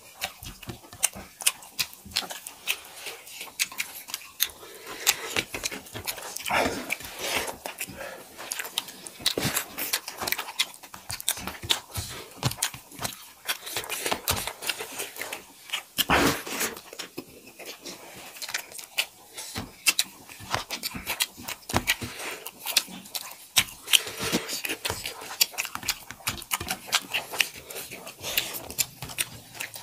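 Two people eating rice and curry with their hands: constant, irregular wet chewing and lip smacking, with fingers squishing and mixing rice on steel plates.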